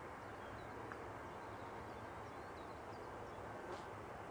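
Steady faint outdoor background hiss with small birds chirping faintly now and then.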